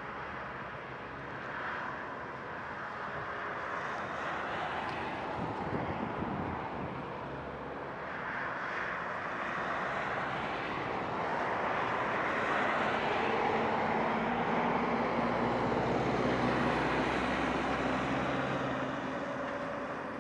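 Airbus A300-600ST Beluga's twin General Electric CF6-80C2 turbofans running at taxi power as the aircraft taxis and turns on the runway: a steady jet whine over a rumble. It grows louder in the second half and eases slightly near the end.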